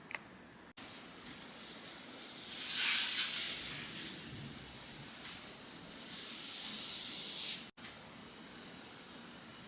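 Two loud hissing rushes of noise, each lasting about a second, one about two and a half seconds in and one about six seconds in, over a faint steady hiss.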